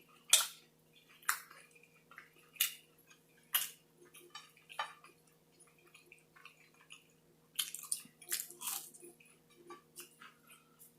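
Close-up chewing of a Burger King triple Whopper: short wet, squishy mouth sounds about once a second, then a quicker cluster about three-quarters of the way through.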